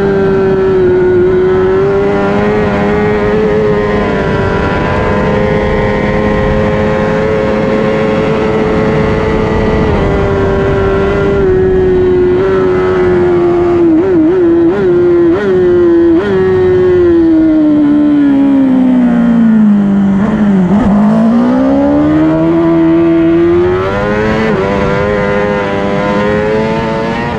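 Honda CBR1000RR Fireblade superbike's inline-four engine running at high revs, with steady wind rush on the onboard microphone. About halfway through come a few quick gear changes, then the revs fall steadily as the bike slows and climb again as it accelerates away.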